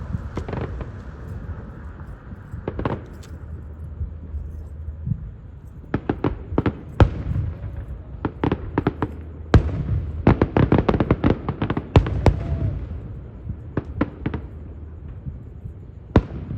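Aerial fireworks show: a low rumble with a few scattered bangs, then a dense volley of sharp bangs and crackles from a third of the way in, thinning out again near the end.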